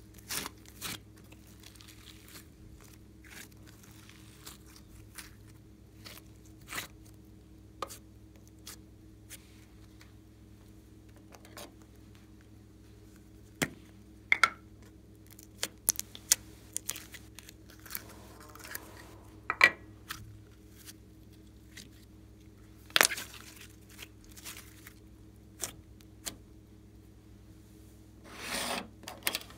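Glossy glitter slime being squeezed and stretched by hand, giving scattered sticky clicks and pops over a faint steady hum, with a longer rustling squelch near the end.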